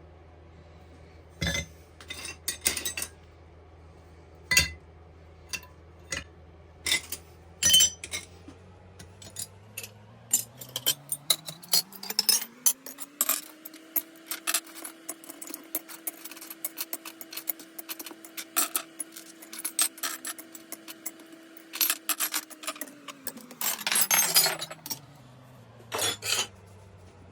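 Repeated metallic clinks and taps, as of metal tools and objects being handled, over a low machine hum. About nine seconds in, the hum rises in pitch and holds steady for about eight seconds, then winds back down.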